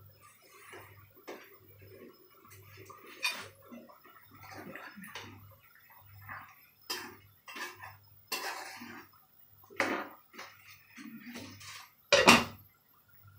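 Metal ladle clinking and scraping against a pan of curry as it is stirred, with the clank of a glass pan lid; irregular clinks, the loudest clank about a second before the end.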